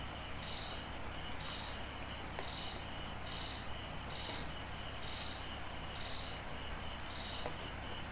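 Crickets chirping steadily in the background, a pulsed chirp repeating about every half second, over a low steady hum. Faint wet clicks of hands sorting through a tub of small fish come through now and then.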